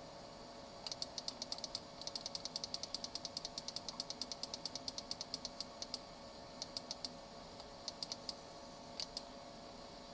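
A fast, even run of small plastic clicks, about nine a second, for about five seconds, then a few short scattered groups of clicks. This is clicking at the computer to set a vintage Mac's clock back several hours.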